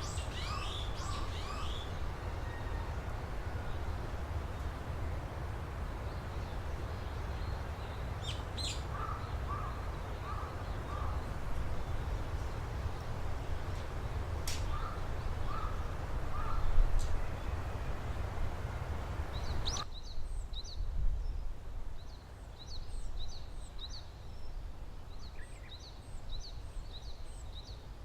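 Several wild birds calling in a forest: quick high chirps and twitters, with short runs of three or four caw-like calls from a crow. A steady low rumble lies underneath and drops away abruptly about two-thirds of the way through.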